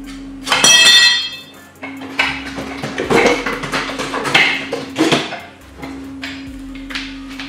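Metal being struck and handled: one loud ringing clang about half a second in, then a run of clanks and knocks.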